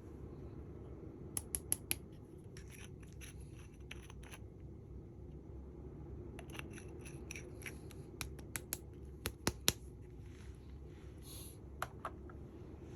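Small sharp clicks and taps from makeup items and their packaging being handled, coming in quick clusters over a low steady hum; the loudest clicks come a little past the middle.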